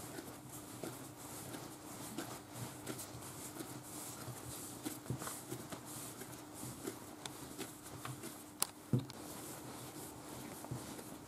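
Panettone dough being rounded by hand on a floured countertop: faint, irregular soft pats and thumps of the dough against the work surface, with two sharper knocks close together late on.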